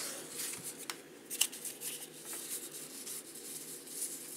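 Baseball trading cards being thumbed through one at a time, their edges sliding and rubbing against each other in a light papery rustle, with a couple of sharper ticks about a second in.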